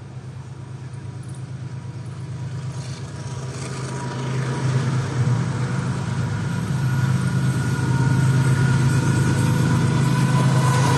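GEU-40 diesel-electric locomotive approaching at the head of a passenger train, its engine running with a steady low drone that grows steadily louder as it nears. Thin high-pitched tones come in over the second half and strengthen near the end.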